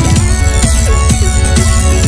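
Loud electronic dance music with a heavy bass and a driving beat of about four strokes a second.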